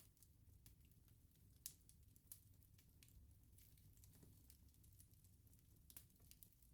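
Wood bonfire crackling faintly: scattered sharp pops, the clearest about a second and a half and two seconds in and another near the end, over a low steady rumble of burning.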